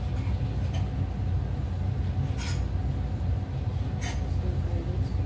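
Kitchen knife slicing sausage on a wooden chopping board, a few sharp taps of the blade on the board, over a steady low background rumble.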